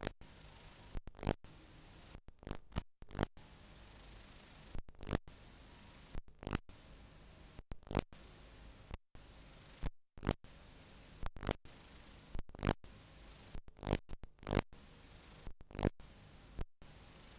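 Static from a blank stretch of videotape: a steady hiss broken by sharp crackles at irregular intervals, about one or two a second, with a few brief dropouts.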